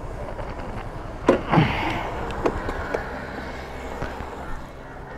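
Scooter engine running low and idling, with a few sharp knocks about a second in and a couple more later.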